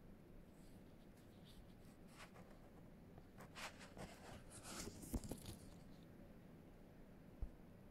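Near silence, broken in the middle by faint, scratchy rustling, with two soft low bumps about five and seven and a half seconds in.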